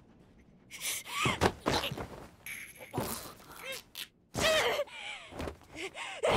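A scuffle: strained grunts, gasps and short cries from people fighting, mixed with thuds and blows. It starts about a second in, after a brief quiet.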